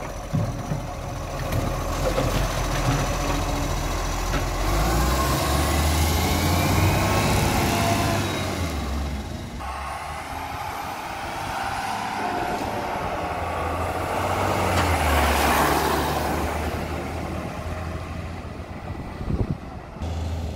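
Side-loading garbage truck's engine revving as the truck pulls away, its pitch rising twice as it works up through the gears, then fading as it drives off.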